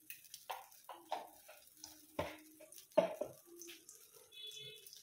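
Kitchen handling noise: spice containers and utensils being picked up and set down, a scatter of light clicks and knocks with the loudest knock about three seconds in.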